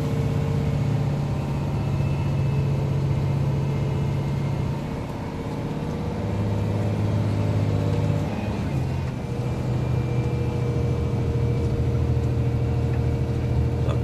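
Truck engine and road noise heard from inside the cab while driving, a steady hum whose pitch drops about five seconds in and rises slightly again after about eight seconds.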